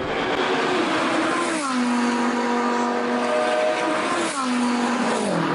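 World Rally Car engine running hard past the stage, its pitch dropping sharply about a second and a half in and again near the end.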